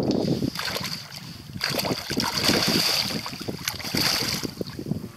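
A hooked pike thrashing at the water surface, splashing again and again, loudest in the middle, with wind buffeting the microphone.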